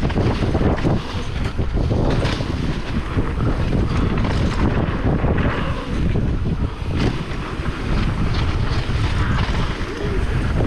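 Wind buffeting the microphone over the rumble of a mountain bike rolling fast along a dirt trail, with frequent short knocks from bumps.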